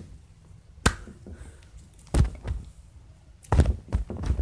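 A handful of dull thuds and knocks at irregular intervals, as lumps of Play-Doh are smashed down by hand.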